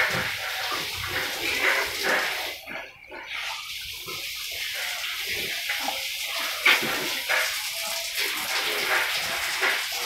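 Young pigs in a pen snuffling and rooting, with short clicks and snorts, over a steady rushing noise like running water that drops out briefly about three seconds in. A sharp knock comes just before seven seconds.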